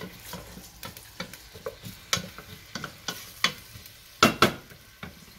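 Chopped onions sizzling in oil in a stainless steel pot while a wooden spatula stirs them, knocking and scraping against the pot. The knocks come irregularly, the loudest a quick double knock about four seconds in.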